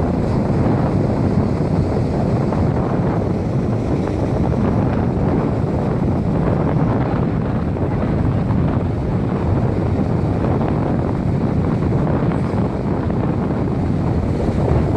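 Strong wind buffeting the microphone on a beach, a steady low rumble, with ocean surf beneath it.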